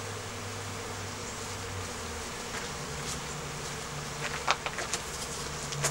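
Honeybees buzzing around the hive entrances: a steady hum whose pitch steps up slightly about two seconds in, with a few faint ticks a little past the middle.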